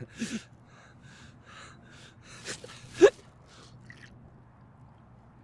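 A person hiccuping: short, sharp gasping hiccups, one near the start and two about half a second apart around three seconds in, the last one the loudest.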